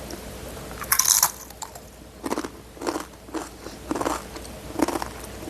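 A person biting into crunchy chips about a second in, then chewing them with a crisp crunch about every half second.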